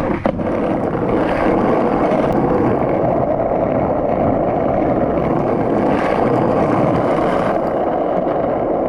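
Wind blowing across a GoPro Hero 10's microphone: a loud, steady rush of wind noise.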